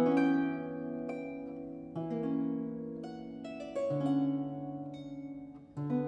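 Background music of plucked-string notes that ring and fade, over low chords changing about every two seconds.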